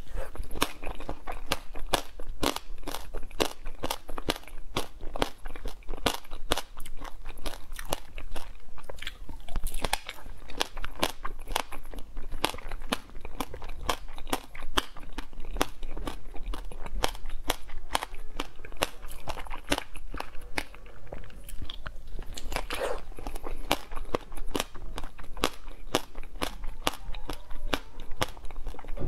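Close-miked biting into hard frozen ice cream and chewing it: dense, irregular crunching and crackling, many small cracks a second, without a break.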